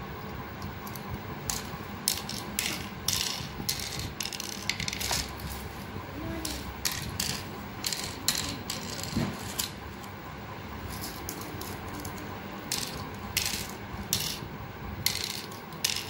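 Cowrie shells clicking as they are dropped one by one into the cups of a pallanguzhi board, in irregular runs of sharp clicks with a quieter pause a little past halfway.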